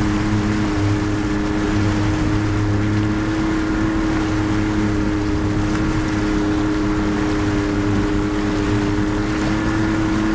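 A boat's outboard motor running steadily under way, one even engine note with no change in speed, over the rush of water and wind along the hull.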